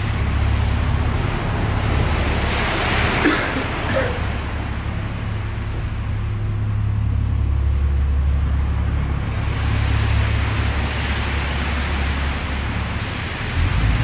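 City street traffic: a vehicle swells past about three seconds in and another near the end, over a steady low rumble.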